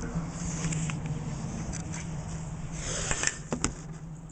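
Handling noise from a handheld camera being carried and then set down on a table: rustling and light clicks, with a few sharp knocks about three and a half seconds in as it comes to rest. A steady low hum runs underneath.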